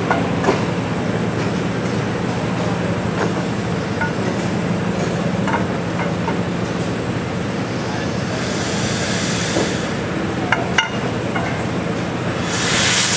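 Huge 1942 Fairbanks-Morse Model 32 engine being barred over by hand with a pry bar in its flywheel spokes. A steady low machinery hum runs under scattered metal clanks, with a hiss twice in the second half, the last one near the end as the piston comes up on its compression stroke.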